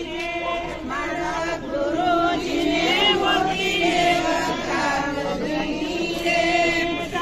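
A group of voices chanting together in long held notes.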